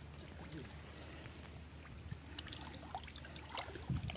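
Faint sloshing of shallow muddy water as hands grope through it, with a few small splashes about two and a half seconds in and near the end.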